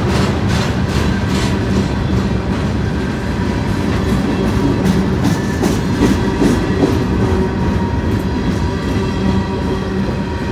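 Freight train passing close at speed: steel wheels of loaded steel-slab flatcars and gondolas rolling with a steady rumble and a regular clickety-clack over the rail joints, the clicks clearest in the first few seconds.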